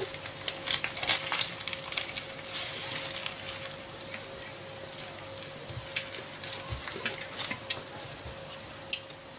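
Bamboo sushi rolling mat clicking and rustling as hands roll and press a nori-wrapped sushi roll firmly inside it, with one sharper click near the end.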